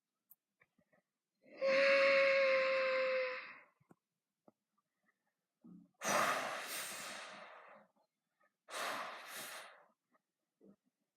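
Invented creature calls used as sound effects: a cry held steady at one pitch for about two seconds, then a breathy hissing call that fades over about two seconds, then a shorter breathy call in two parts.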